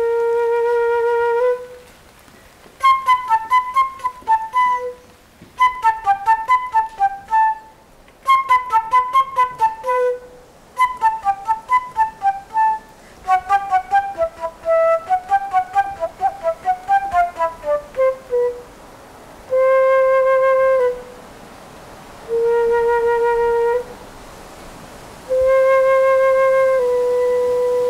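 Solo concert flute playing. After an opening held note, quick runs of short staccato notes follow from about three seconds in, the last one falling steadily in pitch. Three long held low notes with short pauses between them close it.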